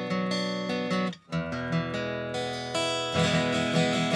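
Background music: strummed acoustic guitar with a steady beat, briefly cutting out about a second in.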